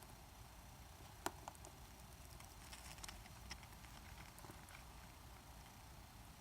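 Faint, scattered small clicks and ticks of tiny screws and a screwdriver tip against the iPhone 6S's metal brackets as screws are put back in; one sharper click about a second in, a cluster of light ticks near the middle.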